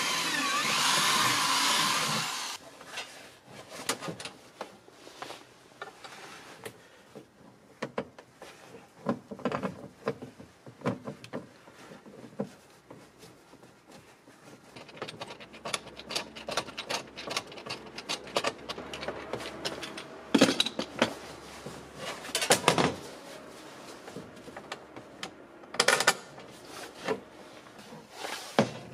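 Power drill running with a wavering whine, stopping about two seconds in. Then scattered clicks, taps and rattles of parts being handled, with a few louder knocks in the second half.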